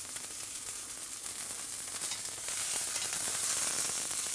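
Beef filet mignon steaks searing in hot oil in a stainless steel frying pan: a steady sizzle with fine crackling, a little louder from about halfway, as the seared crust forms on the underside.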